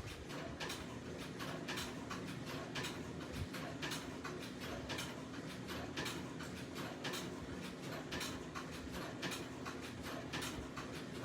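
Industrial sewing machine stitching: a steady motor hum under a rapid, even run of needle and feed clicks.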